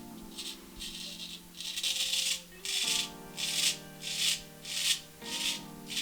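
A 1929 HMC Cutlery straight razor scraping through stubble on skin lathered with hair conditioner, in short repeated strokes about two a second, one longer stroke near the middle. Background music with held chords plays underneath.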